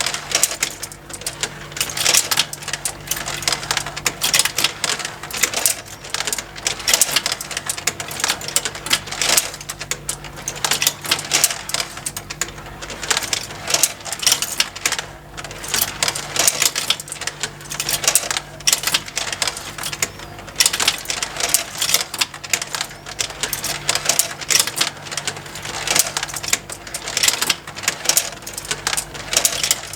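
Multi-level plastic marble run toy: marbles click and clatter continuously on plastic tracks and the motorized plastic conveyors that lift them, over a steady low motor hum.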